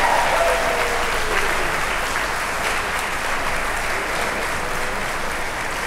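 Audience applauding steadily, with a few whoops fading out in the first second.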